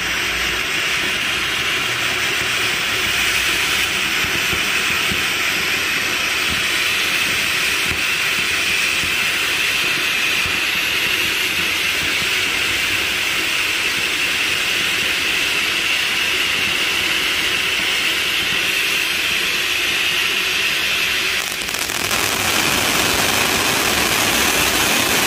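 Maximum Overdrive firework fountain spraying sparks with a loud, steady hiss. Near the end the sound dips briefly, then comes back louder and fuller as the spray widens.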